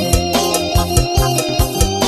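Loud dance music led by an electronic organ-style keyboard over a steady drum beat of about four beats a second.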